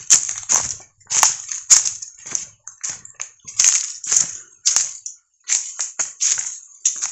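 Footsteps crunching on a forest trail, about two steps a second, unevenly spaced.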